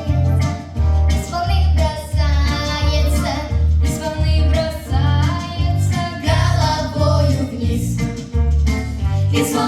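Children's song: children singing a melody over music with a steady, pulsing bass beat.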